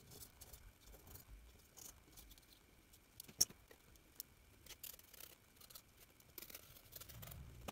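Faint clicks and light scrapes of a steel ruler, pen and craft knife being handled on a cutting mat, with one sharper click about three and a half seconds in.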